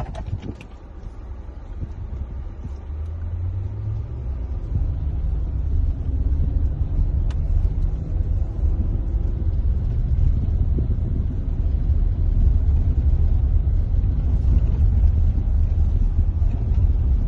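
Low rumble inside a car cabin as the car drives on a rough gravel road: tyre, road and engine noise that grows louder over the first several seconds, then holds steady.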